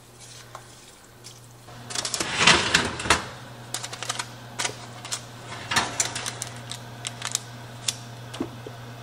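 Oven being opened and its wire rack pulled out, with a glass baking dish in parchment on it: a loud clattering burst about two seconds in, then scattered metallic clicks and clinks as the rack and dish are handled. A steady low hum runs underneath.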